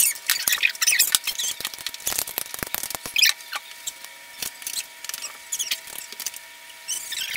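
Wooden rolling pin rolling out yeast dough on a floured worktop, then hands pressing poppy-seed filling onto the dough. A run of light knocks and clicks with short, high squeaks.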